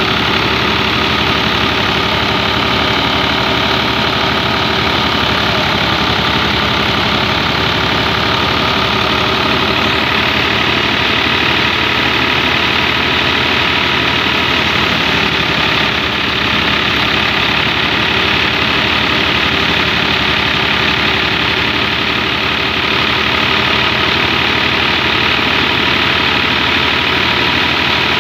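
New Holland 480 tractor's diesel engine running steadily while it drives a wheat thresher through a long shaft, together with the steady whir of the thresher as straw is fed in. The sound is loud and unchanging.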